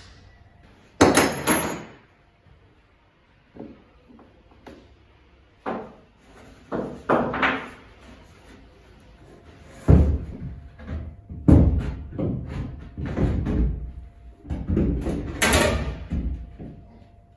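A large plywood bulkhead panel being handled inside a boat hull: irregular knocks, thumps and scraping as the wood bumps against the hull and frames, with a sharp bang about a second in and a cluster of heavier thuds in the second half.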